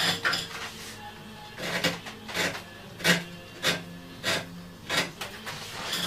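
A hand tool scraping, rasping on the wooden frame of a music box, in a series of short strokes, about one every two-thirds of a second.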